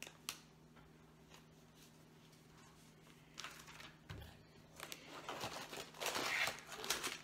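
Cardboard LEGO box and its packaging being handled, rustling and scraping. It is quiet at first, then the rustling grows louder and busier in the last couple of seconds as the box flap is opened.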